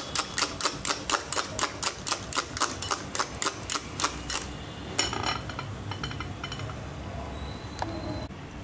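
Coil-spring hand whisk beating eggs and melted butter in a bowl: quick, even clicks at about five a second that stop about halfway through, with a few weaker clicks just after.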